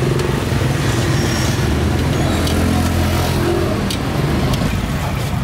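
Street traffic: a motor vehicle's engine running close by, a low hum that swells about two seconds in and eases off after about four seconds. A couple of sharp clicks sound over it.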